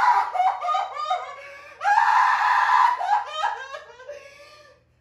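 A woman wailing and sobbing in acted anguish: a long held cry breaks into short gasping sobs, a second loud wail about two seconds in, then sobs that fade away near the end.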